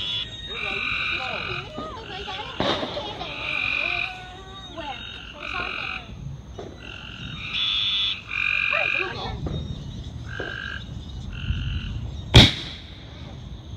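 A chorus of frogs calling, repeated trills about half a second to a second long, one after another. About twelve seconds in, a single sharp firework bang.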